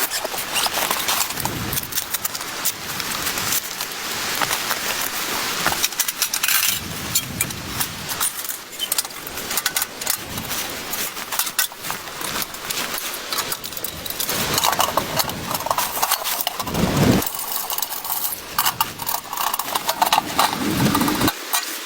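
Irregular handling noise: rustling with rapid clicks, clinks and knocks, and a few duller thumps, one heavier thump about two-thirds of the way through.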